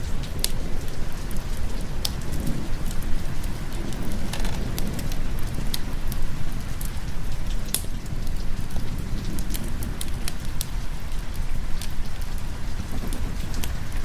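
Rain falling steadily over a low rumble, with scattered sharp crackles from a wood fire a couple of times a second.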